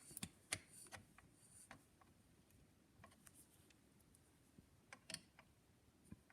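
Faint, scattered small clicks and taps, several close together in the first two seconds and a few more around three and five seconds in: a screwdriver easing a greased part into a phonograph's metal back bracket.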